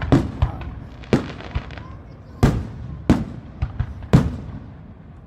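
Aerial firework shells bursting one after another: loud booms about a second apart with smaller pops between, each trailing off briefly.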